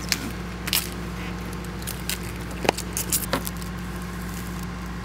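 Snap-on lid of a plastic five-gallon bucket being pried off and its contents handled: a few sharp plastic clicks and crackles, the loudest about two and a half seconds in, over a steady low hum.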